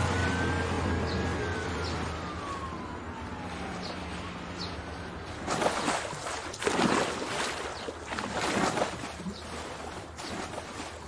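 An emergency vehicle's siren wails, gliding up and then slowly down as it fades over the first couple of seconds, over a low traffic rumble. From about five and a half seconds in, a swimmer doing butterfly stroke makes several heavy splashes in a pool.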